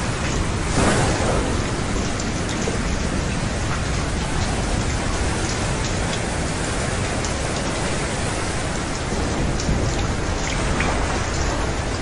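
Steady rain falling with a low thunder rumble underneath, and a brief louder swell about a second in.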